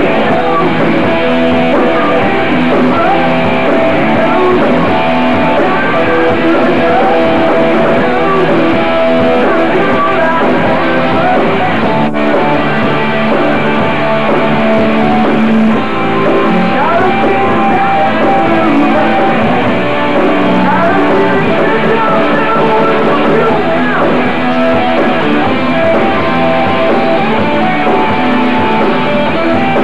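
Live rock band playing a song: electric guitars, a strummed acoustic guitar and a drum kit, loud and continuous.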